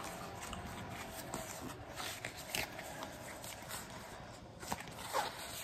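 A neighbour's lawn mower running faintly and steadily, under light clicks and rustles of a deck of oracle cards being handled and fanned out.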